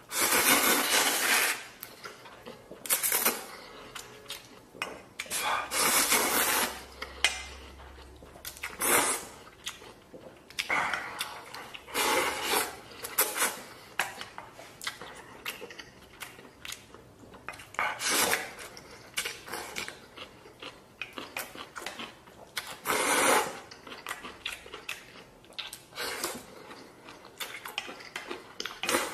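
A person eating noodles: repeated loud slurps, each about a second long, every few seconds, with chopsticks and a bowl clinking in between.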